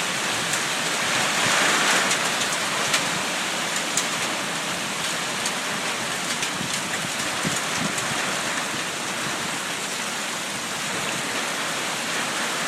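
Heavy summer storm rain falling steadily, a dense even hiss with scattered sharp ticks of drops striking close by.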